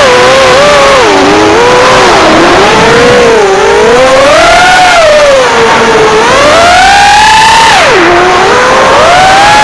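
Multirotor drone's electric motors and propellers whining, the pitch rising and falling with throttle, with a sharp drop about eight seconds in before climbing again. This is an abnormal noise that appeared after a crash; with the props already replaced, the owner suspects one of the motors, which got mud in it.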